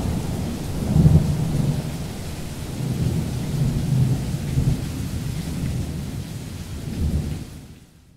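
Long rolling thunder rumbling in slow swells over a steady hiss of rain, fading away just before the end.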